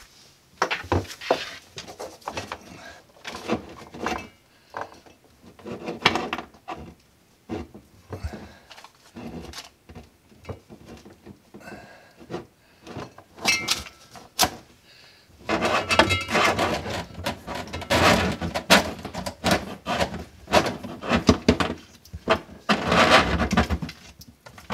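Rustling, scraping and irregular knocks of a dishwasher's drain hose, water line and power cord being fed through holes in a wooden sink cabinet. The handling gets busier and louder over the last nine seconds or so.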